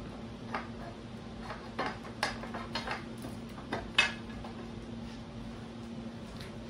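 A wrench clinking against bolts and metal mounting hardware: a few irregular sharp metallic clinks, the loudest about four seconds in, over a steady low hum.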